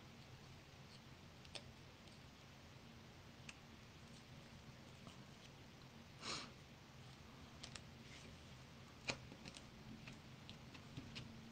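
Near silence with faint handling of paper and cardstock pieces on a craft table: scattered small clicks and taps, a short swish about six seconds in and a sharper tap about nine seconds in, over a faint low hum.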